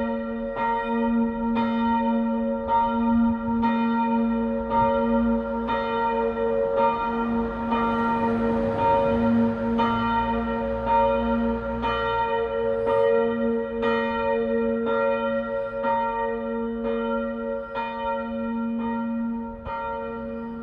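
Church bells ringing a full peal: swinging bells striking about once a second over a steady ringing hum.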